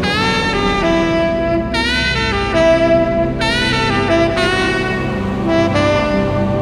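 Tenor saxophone playing a slow jazz ballad melody over a sustained synthesizer pad; the sax comes in right at the start, several of its notes sliding up into pitch.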